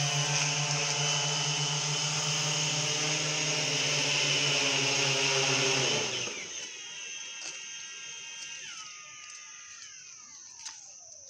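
Electric lift rotors of a fixed-wing VTOL delivery drone running with a loud steady hum. About six seconds in they cut back sharply and wind down, a fading whine falling in pitch over the next few seconds.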